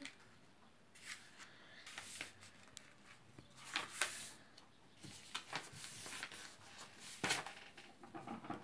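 White printer paper rustling and crinkling as it is folded, creased and slid by hand over a wooden table, in short scattered scrapes, the sharpest about four seconds in and again just past seven seconds.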